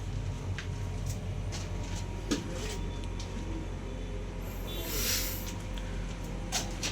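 Metal tools and gear parts clinking and knocking over a steady low hum, with one sharper knock about two seconds in and a brief hiss around five seconds in.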